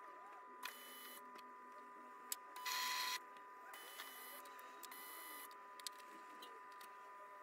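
Faint steady high-pitched electrical whine, with a brief burst of hiss a little under three seconds in and a few light ticks.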